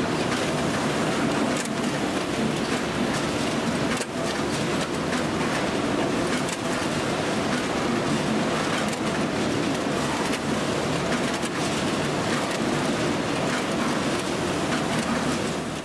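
Prewa Cubix packaging machine running: a steady mechanical rattle and clatter with many small clicks.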